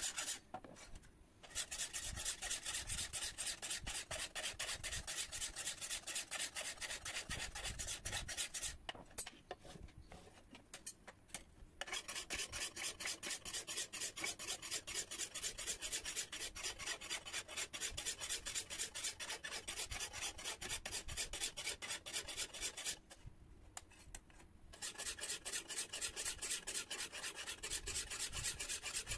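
Flat hand file rasping back and forth along the edge of a curved steel chol dao blade forged from a power-tiller tine, in fast even strokes that stop three times for short pauses: finish-filing the edge to sharpen it before tempering.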